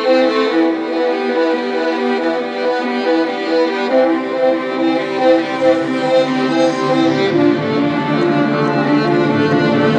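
Background music led by bowed strings, with a violin melody over a steady string accompaniment.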